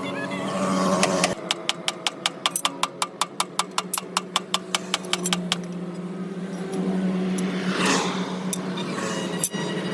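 A vehicle engine running steadily with a low hum. Over it comes a fast, even run of sharp metallic clicks, about seven a second, lasting roughly three and a half seconds, typical of a ratchet wrench being worked. Near the end there is a swelling whoosh like a passing vehicle.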